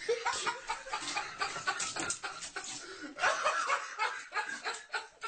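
People laughing in quick, choppy bursts.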